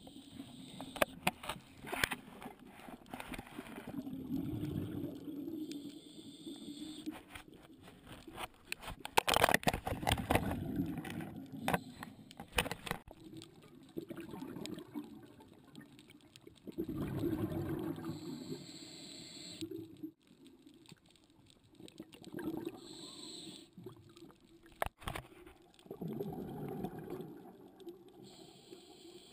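Scuba diver breathing through a regulator, heard through an underwater camera housing: a low, gurgling rush of exhaled bubbles every several seconds, with hissing inhalations and scattered clicks between them.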